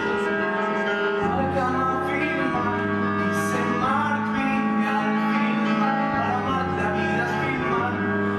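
Live musical-theatre number: a man singing over instrumental accompaniment, with long held notes.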